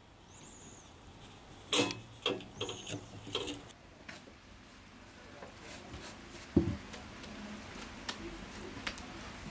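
Hands working soft bread dough at a table, with a glass bowl knocking on the tabletop: scattered clicks and knocks, the loudest a single low thud about two-thirds of the way through. A short high chirp sounds near the start.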